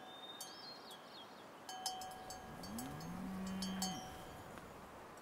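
Cowbells clanking at irregular intervals, with one cow's moo about two and a half seconds in that rises in pitch and then holds for about a second, the loudest sound.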